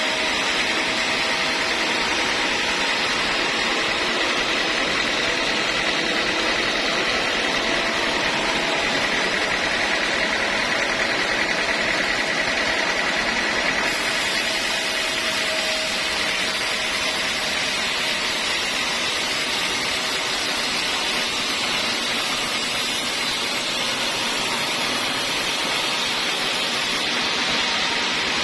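Sawmill machinery running steadily, a constant mechanical noise with a faint high whine that holds an even level throughout.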